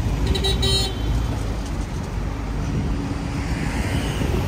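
City street traffic: a steady low rumble of passing vehicles, with a short high squeal about half a second in and a rising whoosh of a vehicle passing near the end.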